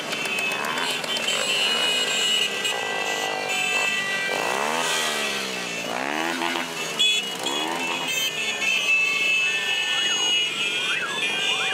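A stream of small motorcycles and scooters riding past, their engines revving up and down in pitch in the middle.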